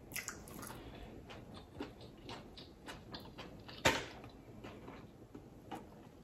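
Quiet close-up eating sounds: small wet clicks and smacks as a green-lip mussel is sucked from its shell and chewed, with one sharper clack about four seconds in.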